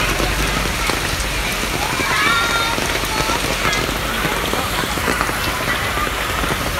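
Steady rushing, splashing water noise, with a brief high-pitched rising cry about two seconds in.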